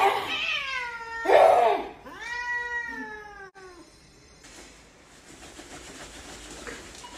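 Domestic cat meowing three times in the first few seconds, drawn-out meows that fall in pitch, the second the loudest and the third the longest.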